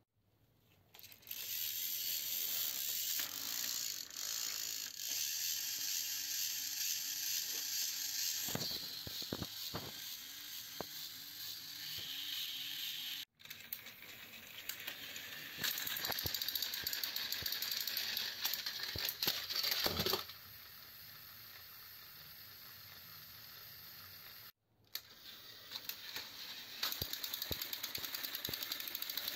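Motorized toy train engines running along plastic track: the steady whirring and rattling of their small gear motors and wheels, with two sudden breaks.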